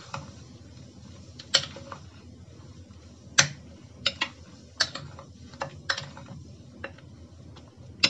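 Metal spoon stirring chicken pieces in a glass bowl of Sprite marinade, clinking sharply and irregularly against the glass about a dozen times.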